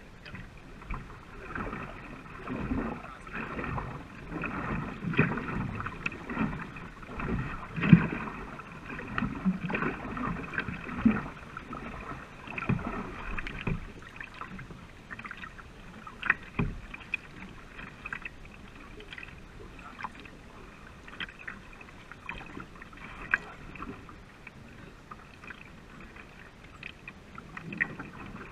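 Racing canoe being paddled: paddle strokes pulling through the water, with water splashing and rushing along the hull and a few sharp clicks. The strokes and splashes are busier in the first half and ease off after the middle.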